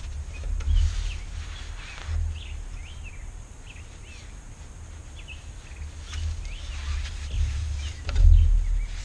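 Small birds chirping now and then, over rustling as lashing cord is pulled and wrapped around a wooden kayak frame joint, with a low rumble that swells near the end.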